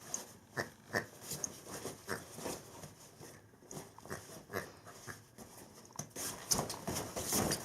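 Dalmatian puppy making short, irregular puffs of breath and movement noise, growing busier and louder in the last second or two.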